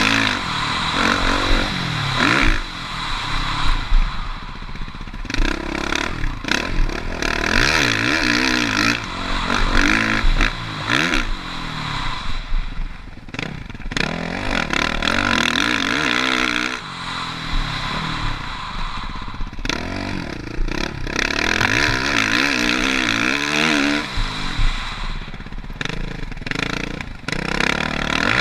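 Motocross bike engine revving up and down again and again as the bike accelerates and backs off around the track, with rushing noise at speed and frequent clattering knocks.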